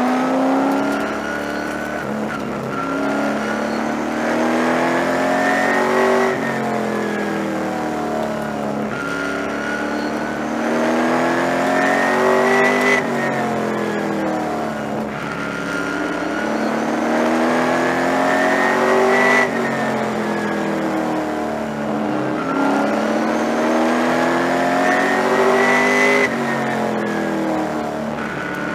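A Super Late Model stock car's V8 engine, heard from inside the car, runs hard and climbs in pitch along each straightaway. It drops sharply when the driver lifts for each corner, four times, then pulls back up.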